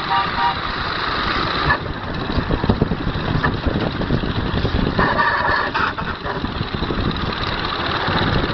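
5-inch-gauge Sweet Pea live steam locomotive running at speed with a passenger car: rapid steam exhaust beats mixed with wheel and rail clatter. A brief, steady high tone sounds about five seconds in.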